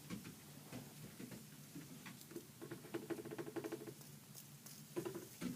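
Faint rustling and scratching with scattered light clicks, as of objects being handled. A short low hum sounds in the middle.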